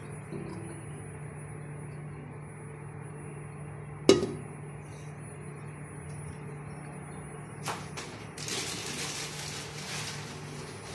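Steady low hum of a gas stove heating oil in a nonstick pan, with one sharp metallic clink about four seconds in and a short stretch of hiss near the end.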